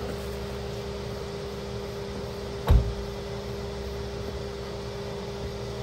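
A steady mechanical hum with a low rumble, and one heavy thump a little under three seconds in.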